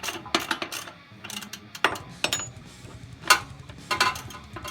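Irregular metallic clicks and clinks of a hand wrench loosening the rear axle hardware of a Harley Sportster 883, with one sharper knock a little past the middle.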